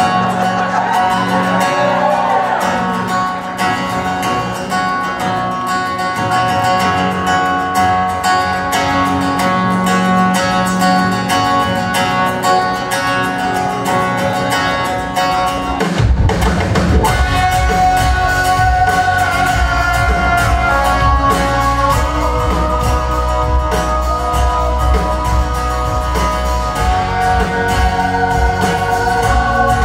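Live folk-rock band playing a song on stage, led by acoustic guitars and keyboard. About halfway through, bass and full drum kit come in and the sound fills out.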